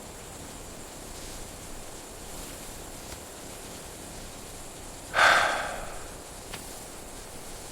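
An elephant gives one short, loud snort about five seconds in, over a steady hiss.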